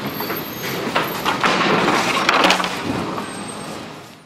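Demolition debris, broken wood and drywall, clattering and cracking as it is tossed into a steel dumpster: a jumble of knocks and crashes that fades out near the end.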